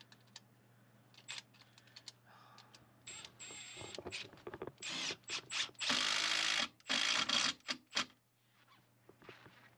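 Hand work with a tool on refrigerant line sets: a string of short, noisy bursts and clicks, the two loudest and longest about six and seven seconds in.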